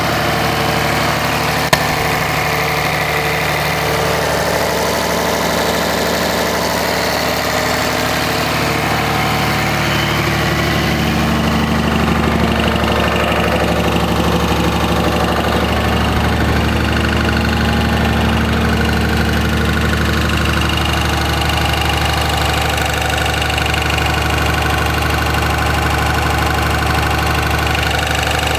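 5.9-litre Cummins inline-six turbodiesel of a 2004.5 Ram 2500 running steadily at idle, its tone shifting a little about twelve seconds in. The truck has a knock, tagged as a rod knock, that comes in gear or under load rather than at idle.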